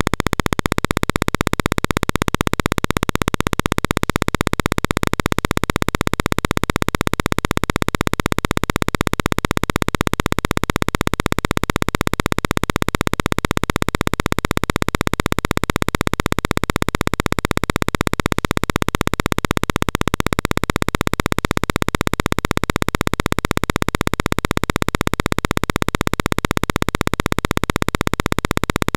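A steady electronic buzz: one unchanging drone made of fast, even pulses, with no change in pitch or loudness.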